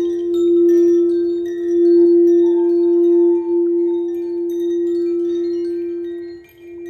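A singing bowl rings with one steady, sustained tone, while chimes tinkle lightly over it with many short, high notes. The bowl's tone dips briefly near the end and swells again.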